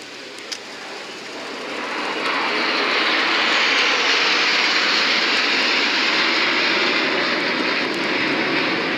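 Jet noise from USAF Thunderbirds F-16 fighter jets flying the display, building over about a second from moderate to loud, then a steady loud rushing roar.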